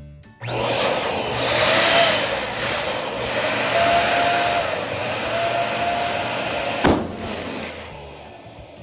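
Electric balloon pump blowing air into a balloon as a steady rush of air with a motor hum. It stops with a sharp click about seven seconds in and winds down.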